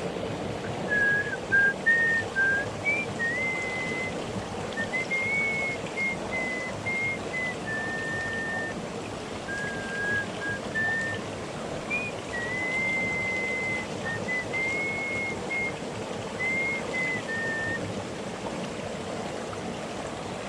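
A person whistling a slow tune in held, stepping notes over the steady rush of stream water.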